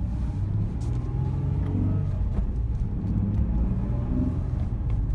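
Nissan 350Z's V6 engine and road rumble while driving, with several short knocks scattered through it. The knocks come from the front centre or front near side, where the drop links have already been replaced to rule them out.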